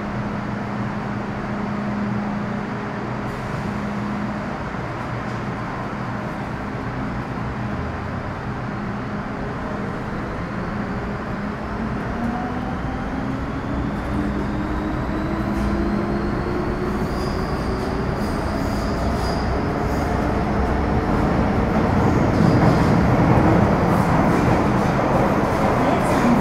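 MTR M-Train (Metro Cammell EMU with GEC GTO chopper traction) pulling away from a station: a steady hum at first, then about ten seconds in the chopper and traction-motor tones start rising in pitch as the train accelerates, with wheel and running noise building louder toward the end.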